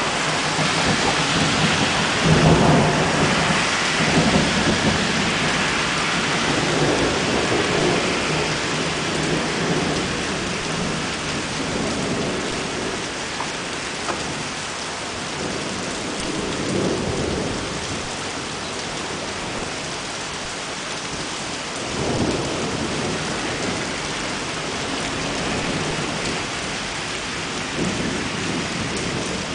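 Heavy rain falling steadily in a severe thunderstorm, with thunder rumbling, loudest over the first few seconds and swelling again briefly about three quarters of the way through.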